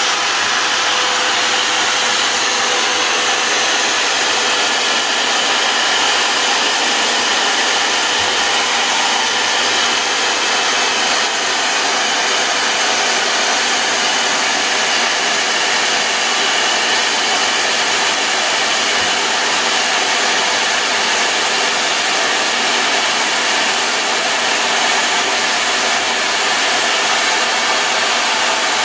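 Corded electric drill running steadily, spinning an engine valve clamped in its keyed chuck while sandpaper is held against it to scour carbon off the valve.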